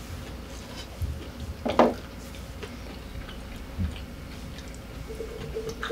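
A person chewing food at the table, with short soft knocks and one brief louder sound just under two seconds in.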